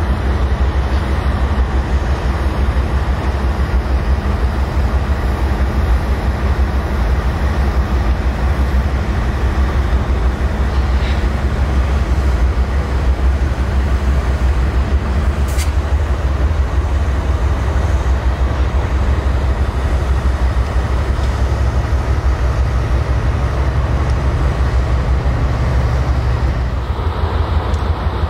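GE diesel-electric freight locomotives running as they roll past, a steady low engine rumble with rail and wheel noise.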